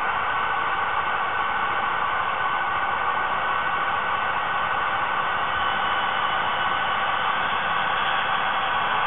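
HO-scale model train with three DCC sound-equipped diesel locomotives running slowly: a steady, hiss-like engine drone from the locomotives' small speakers, with the rolling of the train mixed in.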